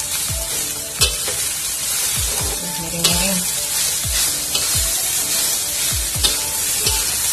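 Fried rice with sweet corn sizzling in a hot wok while a metal spatula stirs and tosses it, scraping the pan with a few sharp clicks of the spatula against the wok.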